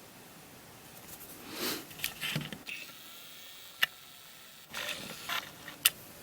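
Sticker sheets being handled and shuffled: two spells of soft rustling with a few sharp light clicks in between.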